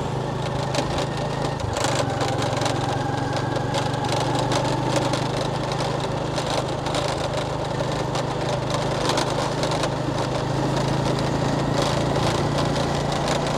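A small engine running steadily at an even speed, with a low hum and a hiss of wind or road noise.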